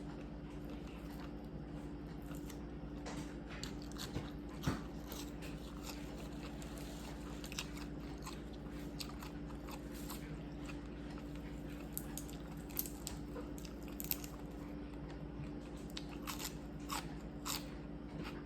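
Someone chewing and biting into food, with scattered crunches and sharp clicks over a steady low hum.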